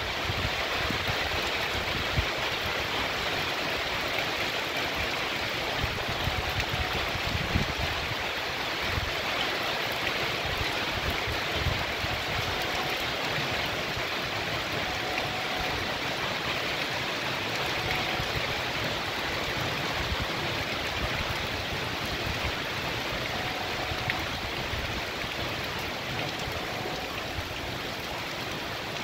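Heavy rain pouring down onto trees and a wet paved street: a steady, even hiss.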